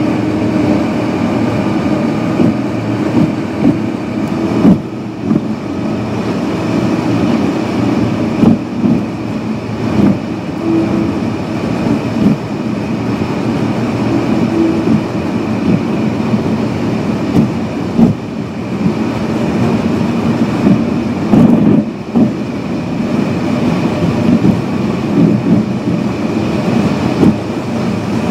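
Cabin noise of a car travelling at highway speed: a steady rumble of tyres and engine, with frequent short knocks and rattles.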